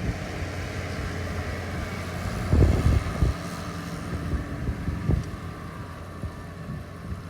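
Old Massey Ferguson tractor engine running steadily, with wind buffeting the microphone and two heavy thumps, about two and a half and five seconds in.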